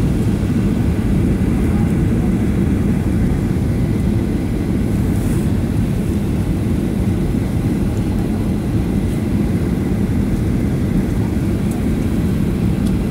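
Steady low roar of the engines and rushing air heard inside a jet airliner's cabin on final approach, seconds before touchdown.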